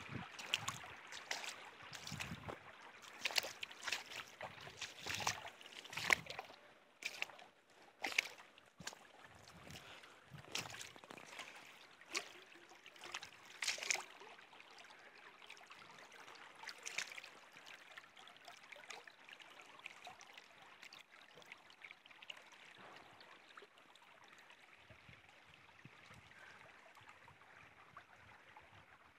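Shallow woodland stream trickling with a steady faint wash of water. Through the first half, sharp crunches of footsteps in dry leaf litter come irregularly, then die away, leaving the stream alone.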